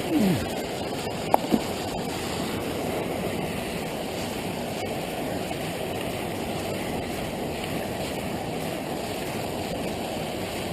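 Steady rush of flowing river water. A brief falling sound comes right at the start, and two short sharp sounds come about a second and a half in.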